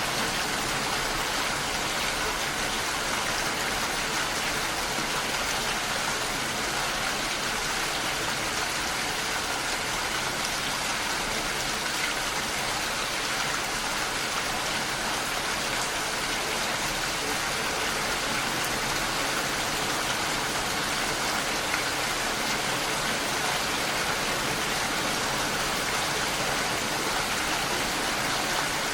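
Steady rain falling, an even hiss of many drops with no let-up or change.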